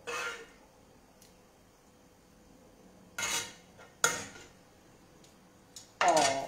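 A metal spoon scraping sauce out of a frying pan and knocking against the serving plate: a scrape at the start, another about three seconds in, then a sharp clink just after. Near the end comes a short pitched sound that bends in pitch, like a voice or a dog's whine.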